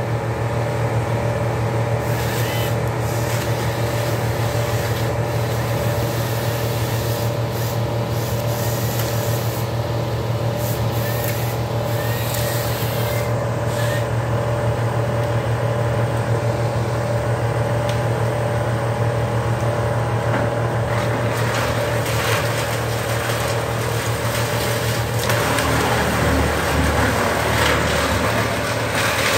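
Heavy work engine idling steadily with an even low drone; a rougher, noisier sound joins in for the last several seconds.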